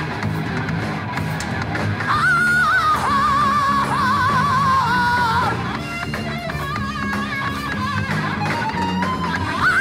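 A live heavy metal band playing: electric guitar, bass and drums. A high, wavering melody line rides over them from about two seconds in to past the middle, and comes back near the end.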